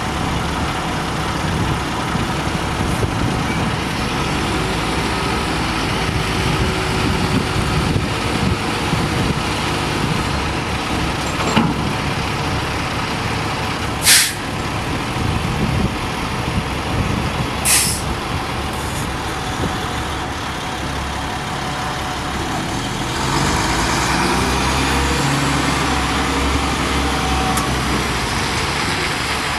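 International DT530 inline-six diesel engine of a 1999 International 4900 dump truck running steadily, with two short, sharp air-brake hisses a few seconds apart around the middle. The engine gets louder in the last quarter.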